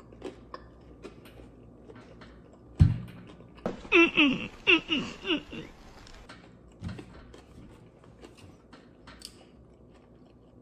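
Close-miked eating of KFC potato wedges: soft chewing clicks and crunches, a thump a little under three seconds in, then a quick run of short vocal sounds from the eater, falling in pitch, for about two seconds.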